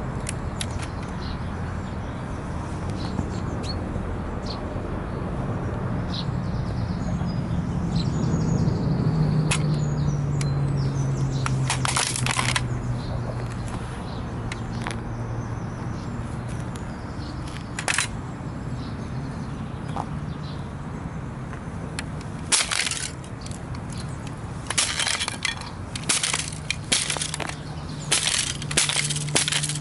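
A model toy car being crushed under Nike Air Max 90 trainers, its body cracking and snapping. There are a few single sharp cracks in the first part, then many rapid cracks and snaps near the end as pieces break off. A steady low rumble runs underneath.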